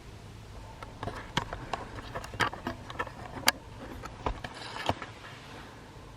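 A string of irregular sharp clicks and taps, a few louder than the rest, over a steady low background hum.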